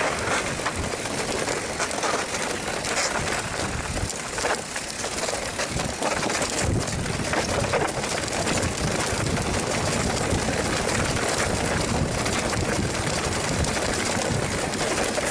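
Mountain bike riding down a rough dirt trail: a continuous rush of tyre and wind noise with many small knocks and rattles as the bike jolts over stones and roots.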